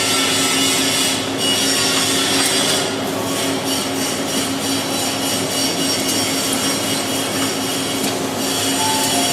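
Tire packing machine running: a steady motor hum with squealing and rubbing over it, as rubber is pressed and forced one tire inside another.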